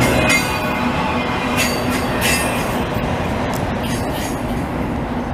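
Autorack freight train cars rolling past on the rails, a steady rumble of wheels with a few short wheel squeals in the first couple of seconds. The sound eases as the last car draws away.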